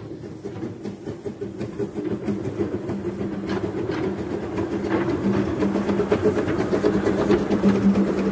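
Narrow-gauge Quarry Hunslet steam locomotive running past at low speed: steady beats of its exhaust and wheels clicking over the rail joints, getting louder as it draws near and goes by.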